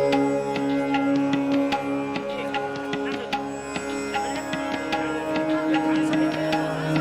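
Instrumental music: plucked string notes over a sustained drone, with percussion strokes.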